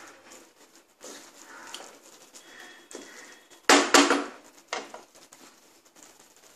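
Wooden spatula stirring thick dal in a nonstick kadai with soft scraping, then two sharp knocks of the spatula against the pan a little under four seconds in, and a lighter knock just after as it is laid down on the rim.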